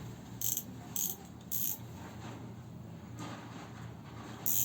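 A new spinning reel being handled as it is unpacked: a few short, sharp clicks or rustles, three in the first two seconds and one more near the end, with faint mechanical ticking.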